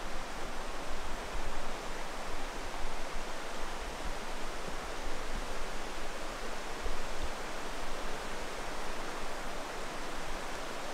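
Shallow mountain creek running over rocks: a steady rushing hiss of water, over an uneven low rumble.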